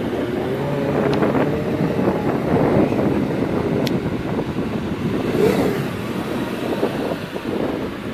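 Wind buffeting the microphone over a car engine running at a steady level, with a short click about four seconds in.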